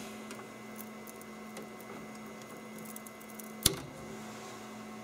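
Faint fingertip ticks and scrapes as cooled plastic is picked off a 3D printer's hot-end nozzle, with one sharp snap about three and a half seconds in as the plastic breaks free. A steady low electrical hum runs underneath.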